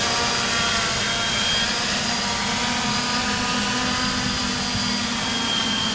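Quadcopter's electric motors and propellers buzzing steadily in flight, a low hum with overtones that waver slightly in pitch.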